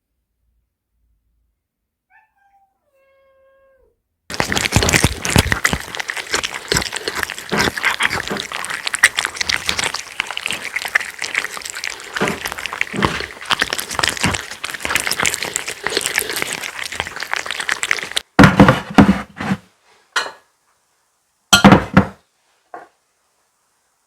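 A cat panting rapidly with open mouth, like a dog, in fast loud breaths for about fourteen seconds. A faint short meow comes a couple of seconds before the panting, and a few louder short sounds follow it near the end.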